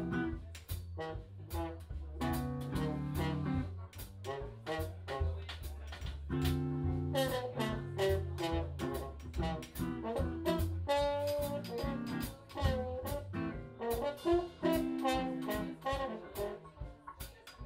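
High school jazz band playing live: a jazz number with a melody line over a steady rhythm section.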